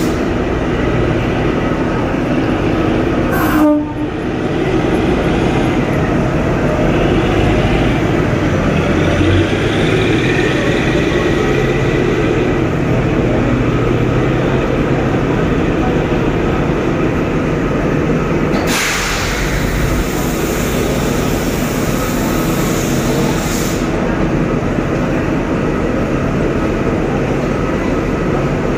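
A 2 ft 6 in narrow-gauge diesel-hauled train rolls slowly into a station, its locomotive and coaches running over the track with a steady rumble. A horn-like steady tone sounds in the first few seconds. A louder rushing, hissing noise rises about two-thirds of the way through and lasts about five seconds.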